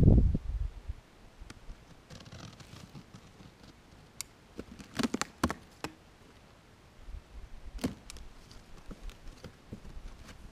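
Cardboard box being slit open with a box cutter and its flaps pulled open: scattered scrapes, sharp clicks and taps, with a cluster of clicks about halfway through. A low rumble fills the first second.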